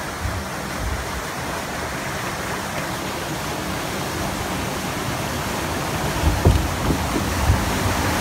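Water rushing steadily along a concrete flume channel under a ride boat, an even hiss. About six seconds in, low rumbling bumps come in and the sound grows louder.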